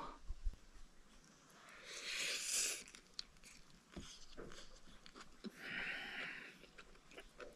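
Someone eating a plate of fried rice close to the microphone: short scraping rustles and a few sharp clicks of a utensil against the plate, with chewing in between.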